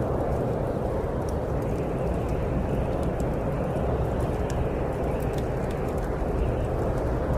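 Steady snowstorm wind, an even rushing noise with a deep rumble, with many faint, scattered crackles of a wood fire burning.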